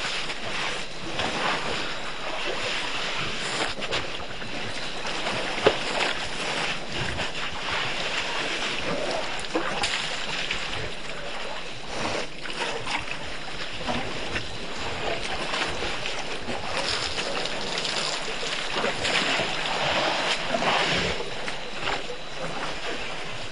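Herd of African elephants drinking at a waterhole: water sloshing and splashing from their trunks, with many small clicks and splashes and one louder knock about six seconds in.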